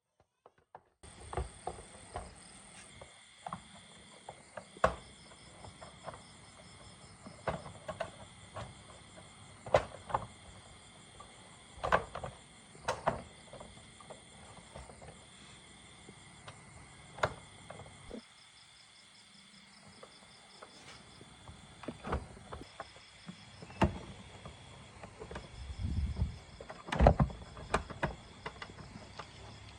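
Irregular clinks and knocks of hand tools on metal parts, some louder than others, over a faint, steady, pulsing chirp of insects.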